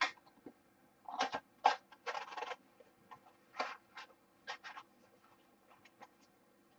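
A phono cartridge's small box and packaging being handled and closed: an irregular run of short scratches, rustles and light clicks.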